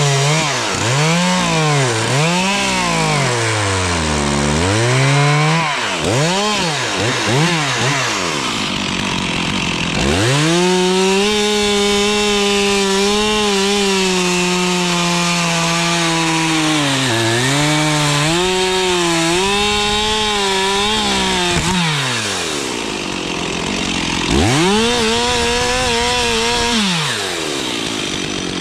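Stihl two-stroke chainsaw revving up and down in quick blips for the first several seconds, then held at full throttle through a long cut in dead spruce, its pitch dipping briefly under load. It drops back, then runs high again for a shorter burst near the end.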